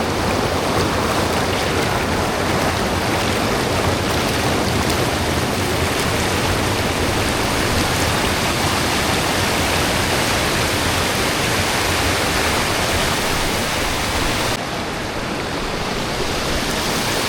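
Rain-swollen creek rushing over its rock bottom and small falls: a steady, even wash of running water. Near the end it turns slightly quieter and duller.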